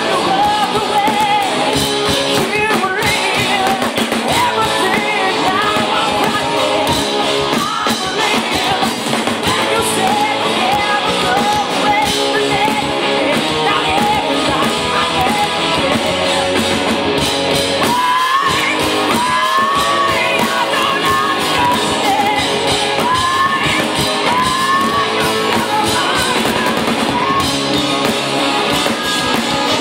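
Hard rock band playing live at full volume: a woman singing and shouting lines over electric guitar and drums, with the sound of a large room.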